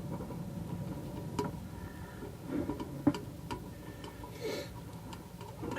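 A few sharp metal clicks and light handling noise as screws are undone by hand from a tin can muffler.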